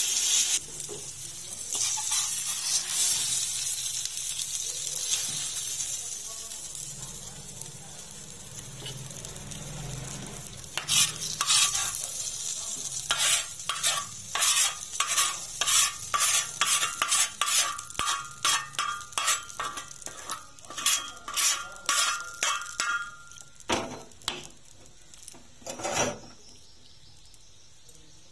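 Eggplant sizzling on a flat iron tawa while a metal spatula stirs it, the sizzle fading away. About halfway through comes a quick run of scrapes of the spatula across the tawa, about two a second, as the food is scraped off onto a plate, and then two single knocks.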